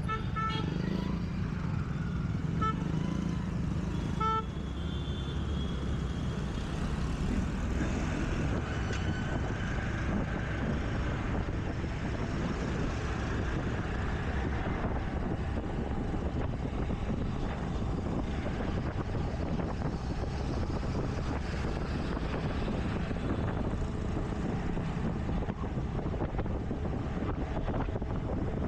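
Scooter riding through city traffic: a steady rush of wind and road noise with the hum of engines. Short horn toots sound a few times in the first few seconds.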